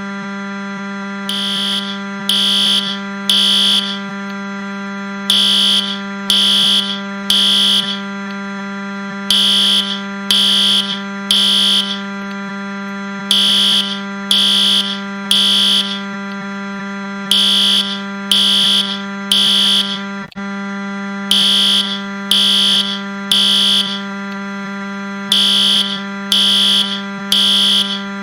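Fire alarm sounding in the temporal-three pattern: groups of three short, high beeps, repeating about every four seconds. Under it runs a continuous, loud, low buzz, the Wii console crash sound pitched down.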